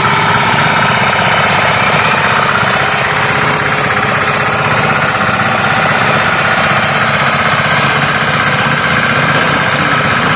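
VSAN Uranus 95D power weeder's diesel engine running steadily and loud as it pulls a trolley carrying its driver.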